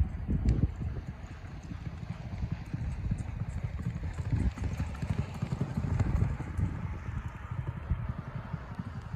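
Racehorse galloping on a dirt track: a fast run of hoofbeats on the dirt, swelling and fading as it goes by.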